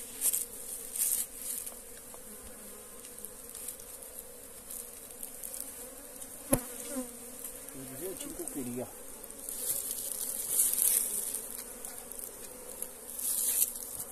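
Honey bees buzzing in a steady hum around an opened log hive during a honey harvest. A few brief hissing noises come and go, with one sharp click about six and a half seconds in.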